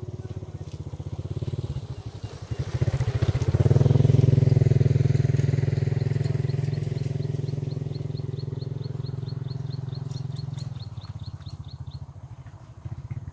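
A small engine of a passing vehicle runs with a steady drone. It grows louder about three seconds in, is loudest around four seconds, then slowly fades.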